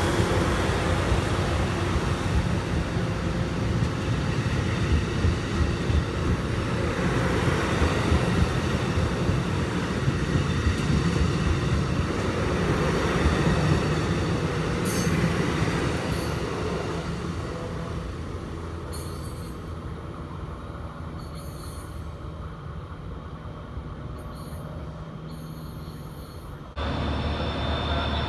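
Amtrak Pacific Surfliner passenger train's bilevel cars rolling past on the rails: a loud, dense rumble that fades steadily from about halfway through as the train pulls away, with a few sharp high clicks. Near the end it cuts to the steadier low hum of a Siemens Charger SC-44 diesel locomotive standing at idle.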